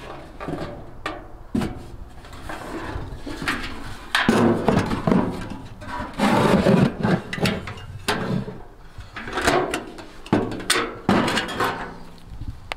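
Irregular knocking, clattering and scraping, as of firewood and sheet metal being handled, with several louder bursts in the middle.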